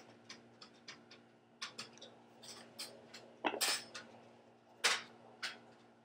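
Sonoline B handheld fetal doppler's speaker giving a steady hum with irregular scratchy clicks and thumps as the probe is moved over the belly, still searching for the fetal heartbeat. The two loudest thumps come about three and a half and five seconds in.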